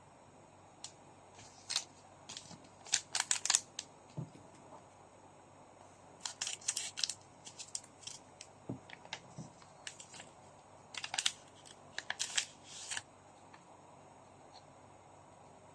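Trading card foil packs and cards being handled and opened, crinkling and clicking in three short clusters of sharp crackles with quiet gaps between.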